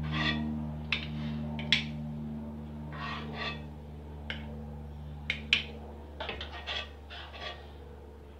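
A spoon scraping and clicking against a pan and the rim of a glass jar as thick pepper paste is spooned into the jar, in scattered short scrapes and taps. A steady low hum underneath fades away.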